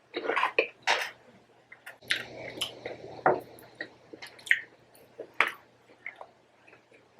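Close-miked eating sounds: chewing and wet mouth noises, with irregular small clicks and smacks.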